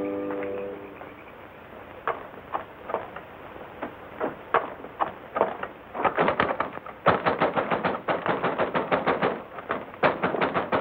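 Loud banging on a wooden door with a fist. It starts as a few scattered knocks, then from about six seconds in turns into a fast, dense hammering.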